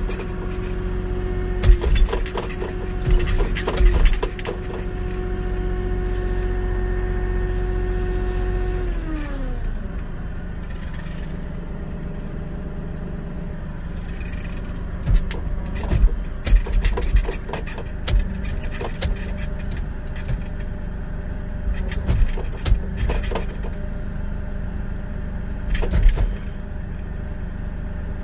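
Avant compact loader's engine and hydraulics running at high revs with a steady whine, which falls away about nine seconds in as the revs drop. Sharp clunks and knocks from the hydraulic U-plow come near the start and again many times in the second half as the plow wings are moved, with no choke valve yet fitted to slow them.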